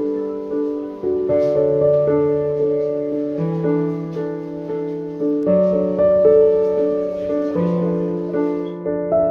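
Slow background piano music: held chords over a bass note that changes every couple of seconds.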